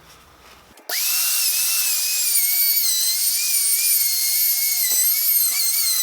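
Electric router starting up about a second in, its pitch rising quickly to a steady high whine that then dips and wavers as it works, most likely routing the recess for the door's plywood panel.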